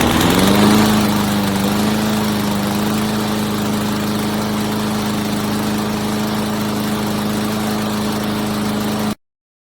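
Gas push mower's 144cc OHV single-cylinder engine, just started, picking up speed in the first half second and then running steadily at constant speed. The sound stops suddenly near the end.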